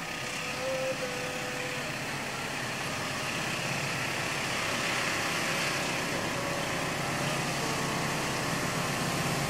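Diesel-electric locomotive approaching from a distance: a low, steady engine rumble that slowly grows louder.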